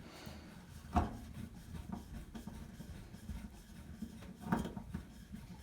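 Faint clicks and scraping of a Phillips screwdriver driving a small screw into a washer's water inlet valve, with two sharper knocks about a second in and near the end.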